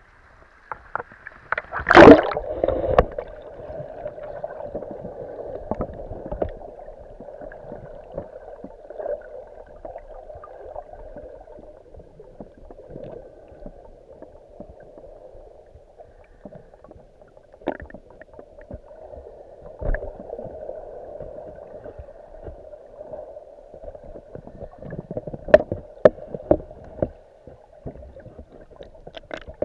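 Underwater sound picked up by a submerged camera: a steady muffled wash of water with scattered sharp clicks and knocks. A loud splash comes about two seconds in, as the camera goes under the breaking surface water.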